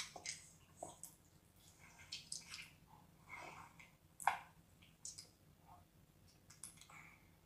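Wet squelching, sucking and smacking mouth sounds of someone eating raw octopus tentacles, as irregular short clicks and smacks with one louder smack about four seconds in.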